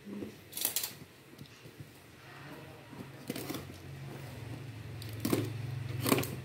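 A plastic-wrapped cardboard parcel being handled and turned over on a tiled floor: short rustles and knocks, four or so of them, with a low steady hum coming in during the second half.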